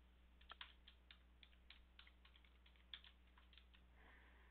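Faint computer keyboard typing: a quick, uneven run of about fifteen keystrokes that stops shortly before the end.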